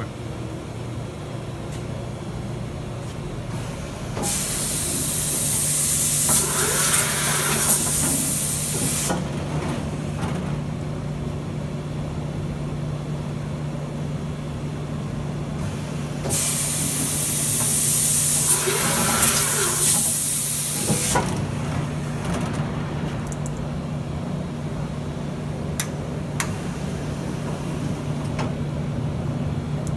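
Kitamura Mycenter-2Xi machining centre cycling its two-pallet Spark Changer twice, each pallet swap accompanied by a loud hiss of air lasting about five seconds, about four and sixteen seconds in. A steady hum from the running machine sits underneath.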